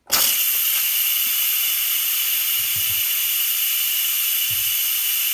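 Instant Pot steam release valve venting pressurised steam in a loud, steady hiss that starts abruptly as the handle is turned to the venting position. This is a manual quick release while the pot is still under pressure.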